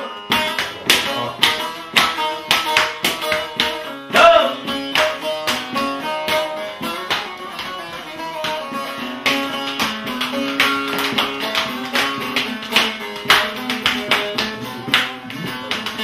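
Bağlama (long-necked saz) playing a quick, rhythmic instrumental interlude of plucked and strummed notes between the sung verses of an arabesk song.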